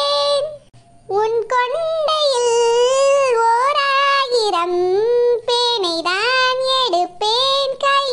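A high, childlike voice singing a Tamil song, holding long notes and sliding between them. There is a short break about a second in.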